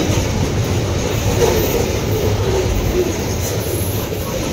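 Open-top steel coal wagons of a freight train rolling past at close range: a steady heavy rumble and rattle of wheels on rail, with brief faint wheel squeals a little past the middle.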